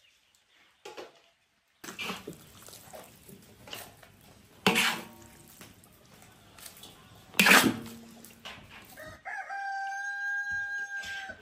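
A metal spatula scrapes cooked rice out of a wok into a steel bowl, with two loud metal knocks against the cookware. Near the end a rooster crows, one long held note lasting about two seconds.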